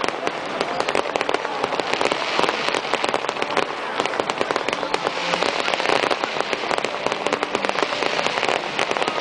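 Fireworks display: a dense, continuous barrage of crackling pops, many small bangs overlapping in rapid succession.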